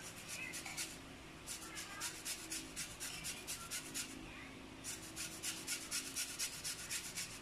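Lemon rind scraped across a handheld flat grater for zest: quick rasping strokes, about five a second, in three runs with short pauses between them.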